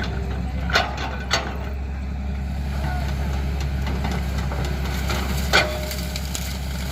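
Heavy machinery's diesel engine running steadily, with two sharp knocks about a second in and another one near the end.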